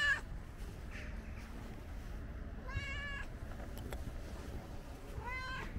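Ginger cat meowing: one call right at the start, another about three seconds in and a third near the end, each under a second long.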